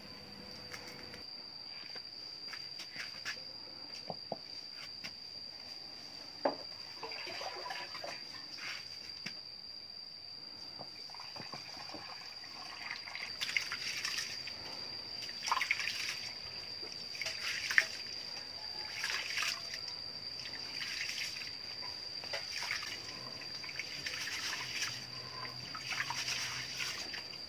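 Hands washing rice in a shallow pan of water: repeated swishing and splashing every second or two, starting about halfway in. A steady high-pitched whine runs underneath, with a few faint clicks early on.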